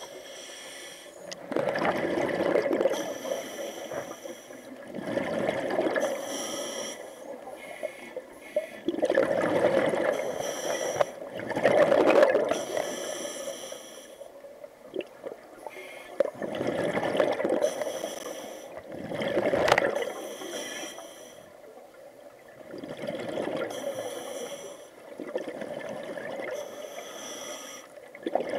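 Scuba diver breathing through a regulator underwater: rhythmic breaths with a rushing gurgle of exhaled bubbles, roughly every three to four seconds.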